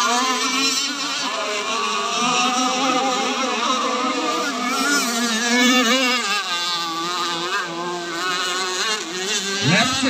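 Engines of several radio-controlled racing powerboats buzzing at high revs together, their pitches wavering up and down as they run the course. Near the end one engine's pitch dips sharply and climbs again.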